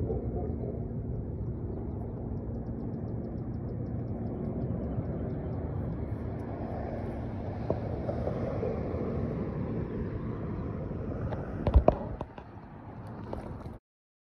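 Steady low outdoor rumble with a faint steady hum underneath, broken by a quick cluster of sharp knocks about twelve seconds in; the sound then cuts off suddenly.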